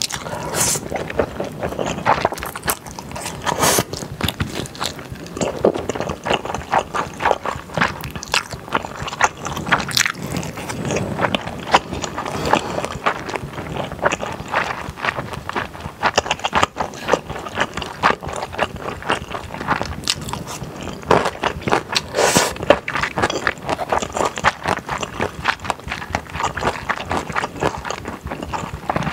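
Close-miked eating: slurping thick, slippery glass noodles and chewing spicy stir-fried beef and noodles, with a dense run of small wet mouth clicks and smacks.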